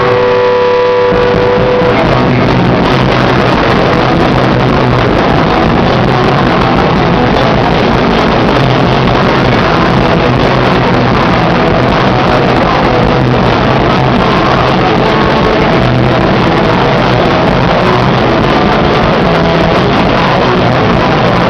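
Rock band playing live, very loud: a few held notes ring out, then about a second in the full band comes in as a dense, steady wall of sound.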